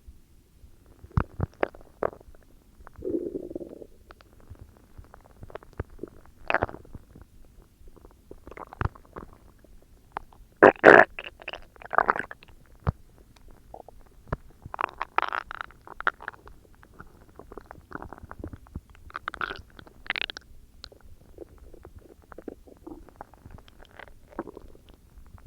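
Human stomach growling and gurgling: an irregular string of squelches, pops and rumbles, with the loudest burst about eleven seconds in.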